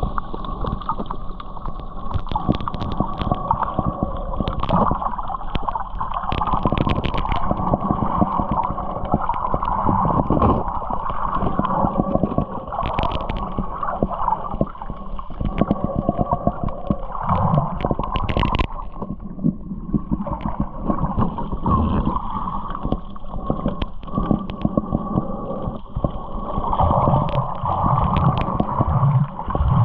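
Boat engine running steadily, with water sloshing and gurgling along the hull.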